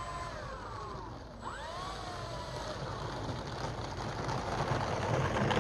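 Twin electric motors and propellers of an Avios King Twin 1700 RC airplane whining as it taxis, the pitch dropping about a second in, then rising and shifting with the throttle, getting louder toward the end as the plane turns and comes closer.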